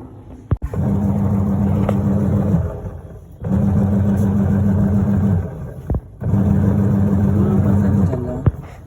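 Washing machine's wash motor and gearbox running in three runs of about two seconds, each with a steady low hum and separated by short pauses, as in a wash cycle. Sharp clicks fall in some of the pauses. The machine is running on a newly replaced gear.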